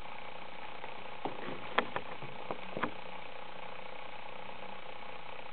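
Steady hum and hiss of background room noise, with a cluster of about five small clicks and taps between one and three seconds in.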